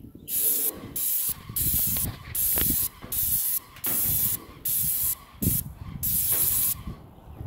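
Paint spray gun on a high-pressure hose spraying grey paint onto metal roof tiles: a loud hiss that starts and stops sharply in about nine short bursts, the trigger pulled on and off about once a second or faster.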